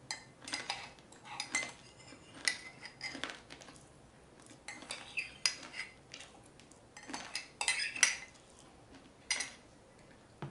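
Metal spoon scraping and clinking against the inside of a ceramic mug in irregular strokes while popping candy is scooped out of it.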